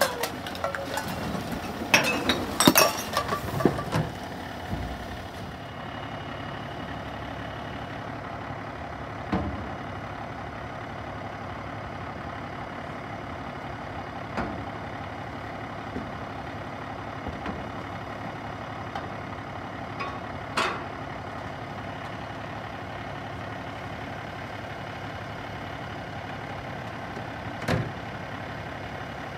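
Automated side-loader garbage truck's diesel engine idling steadily. Loud clattering and banging in the first few seconds as the lifting arm shakes a trash cart out into the hopper, then a few single knocks over the idle.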